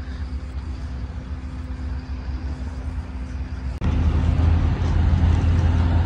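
Diesel engine of earthmoving machinery levelling soil, running steadily with a low rumble that steps up suddenly and gets louder about four seconds in.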